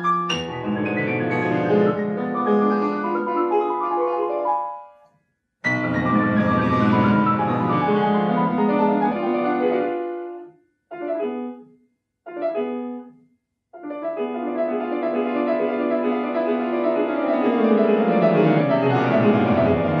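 Yamaha grand piano played solo: rapid falling runs across the keyboard, broken off by a short silence, then two brief detached chords separated by pauses before fast continuous figuration resumes in the last third.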